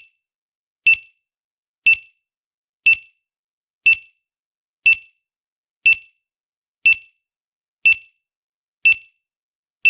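Quiz countdown timer sound effect: short, high electronic beeps, one a second, about ten in all.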